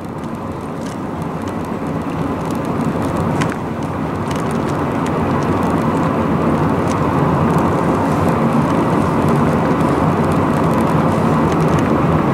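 Road noise heard inside a moving car's cabin: a steady rumble of tyres and engine with wind hiss, growing louder over the first several seconds as the car picks up speed.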